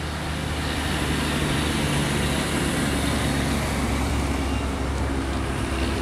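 Diesel locomotive engine running with a steady low drone as it hauls a short passenger train along the track.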